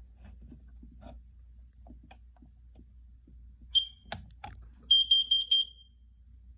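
Kidde plug-in carbon monoxide alarm sounding its self-test: light handling clicks, one short high-pitched beep, then four quick beeps in a row, the carbon monoxide alarm pattern.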